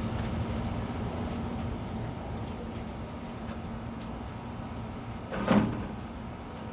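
Toyota Supra's 2JZ inline-six engine idling steadily, just after fresh oil and a power steering fluid top-off. A single loud thump about five and a half seconds in.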